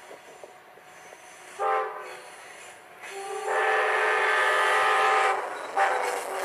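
Amtrak locomotive's air horn sounding a chord in separate blasts: a short blast about a second and a half in, a long blast of about two seconds, then another blast near the end.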